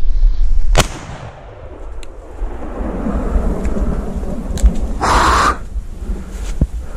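A single shotgun shot about a second in, after which there is rustling through dry brush. Around five seconds in comes a louder, half-second rush of noise.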